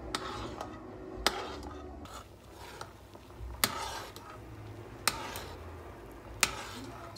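A spoon stirring gochujang seasoning into water in a pot, dissolving it, with a few sharp clinks of the spoon against the pot.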